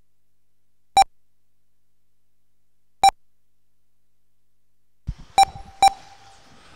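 Short electronic beeps from the race lap-timing system, each a single mid-pitched tone: one about a second in, another two seconds later, then two close together near the end. The beeps mark cars crossing the timing line. A faint open-microphone hiss with small clicks comes in shortly before the last two.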